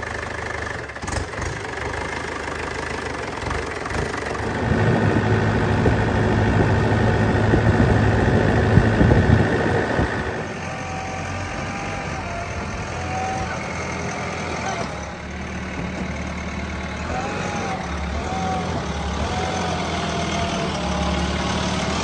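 Diesel engines running steadily: a Swaraj 843 XM tractor's engine, louder from about four to ten seconds in, then a JCB 3DX backhoe loader's engine idling.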